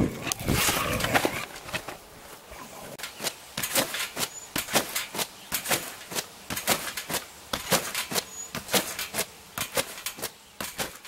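A dog growling for about the first second and a half, then whining to be let back up onto the trampoline, with many short sharp sounds, several a second, through the rest.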